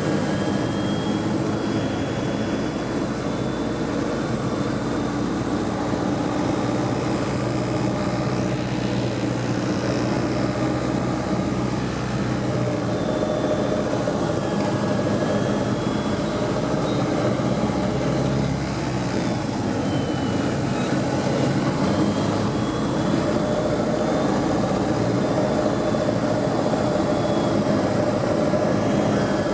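Steady drone of a Cessna 177B Cardinal's four-cylinder engine and propeller in flight, running at an even power setting.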